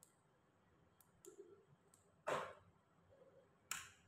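Small hand tools and eyeglass frame parts being handled on a workbench: a few faint clicks, then two short, sharper knocks a little over a second apart in the second half, the first the louder.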